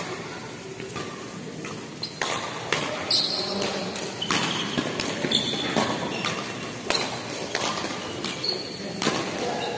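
Badminton doubles rally: sharp racket hits on the shuttlecock mixed with players' quick steps on the court, starting about two seconds in and coming roughly every half second.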